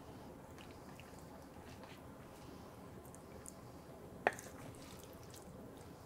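Faint wet, squishy sounds of a wooden spoon scooping shrimp in thick sauce from a stainless pan, with one sharp knock of the spoon about four seconds in.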